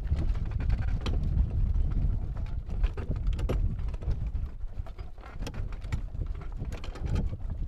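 Wind buffeting the microphone on the deck of a sailing schooner, with irregular clicks and taps from the rigging and sails working. The wind rumble eases a little partway through.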